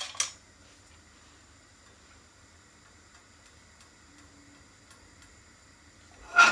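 Kitchen utensils clatter briefly. Then it is mostly quiet apart from a few faint ticks, and near the end comes one sharp clink that rings briefly.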